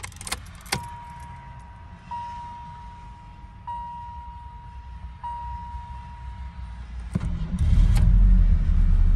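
Keys jingling at the ignition of a 1984 Pontiac Fiero, then a steady dashboard warning tone that swells about every second and a half. About seven seconds in the starter cranks briefly and the 2.5-litre Iron Duke overhead-valve inline-four catches and settles into a loud, low idle.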